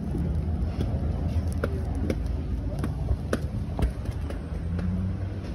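City street ambience: a steady low rumble of road traffic, with a few sharp taps.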